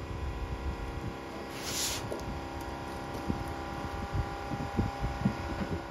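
Steady machine hum with many even overtones, with scattered dull knocks and a short hiss about two seconds in.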